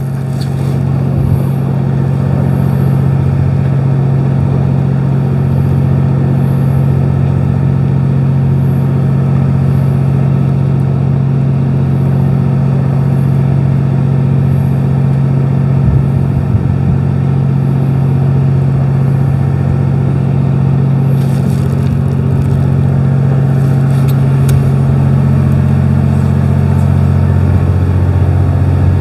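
A fishing boat's engine running steadily, a constant low drone at an even pitch.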